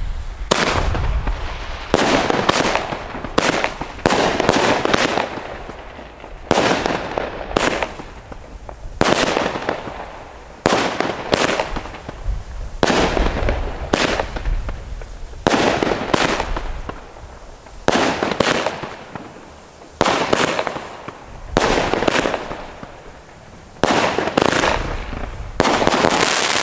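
Pyroland Ehrencake 16-shot consumer firework battery firing shot after shot: a long string of sharp bangs, one about every second, often in close pairs of tube launch and aerial break, each fading before the next.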